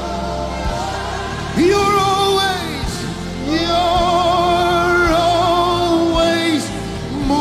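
Live gospel worship music: a lead melody holds two long notes with vibrato, one about a second and a half in and a longer one from about three and a half seconds, over a steady sustained accompaniment.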